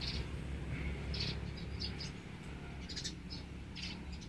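Outdoor ambience: birds chirping in scattered short, high chirps over a low, steady rumble.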